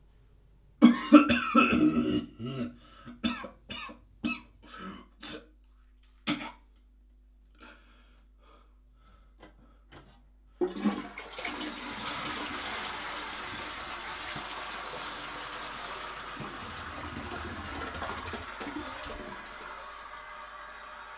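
A person coughing hard, a quick run of coughs followed by single coughs every half second or so for several seconds. About halfway through a toilet is flushed: a sudden rush of water that runs for about nine seconds and then tapers off.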